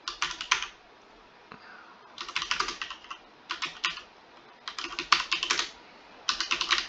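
Computer keyboard typing in about five short bursts of rapid key clicks, with brief pauses between them, as a command is typed in.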